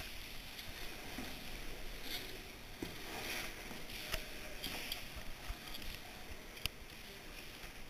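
Rustling and shuffling of a caver's clothing and gear against wet rock as he handles a rope and metal clip, with a few sharp clicks.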